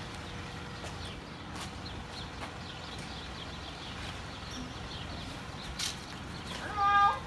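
Light tapping on a window behind security bars, then footsteps on concrete. Near the end, a short high-pitched hum from a person's voice that rises quickly and then holds steady, the loudest sound here.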